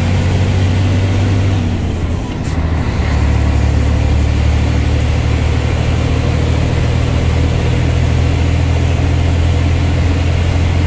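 Scania 113H truck's 11-litre six-cylinder diesel engine running under load as it pulls up a short climb, heard from inside the cab as a steady low drone with tyre and road noise. The engine note dips briefly about two seconds in, then carries on steadily.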